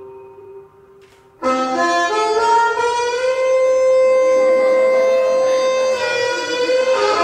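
Recorded music: a faint, fading ambient tail, then about a second and a half in a blues harmonica comes in loudly with long held chords.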